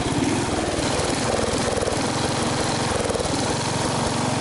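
MTD riding lawn mower engine running steadily.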